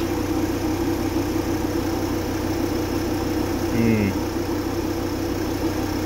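The 2.5-litre five-cylinder TDI diesel of a 2006 VW Crafter van idling steadily.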